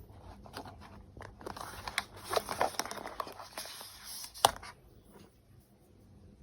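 Hands handling a new smartwatch and its packaging: rustling, scraping and scattered light clicks, with one sharp click about four and a half seconds in.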